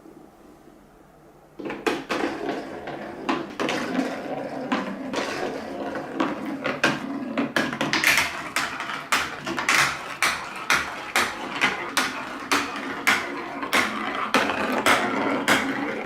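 Colourful balls rolling and clattering down a plastic TrixTrack wave-slope marble run. The clatter starts suddenly under two seconds in, with a fast rattle of small hard clicks and, later, a steady tapping of about two louder clicks a second.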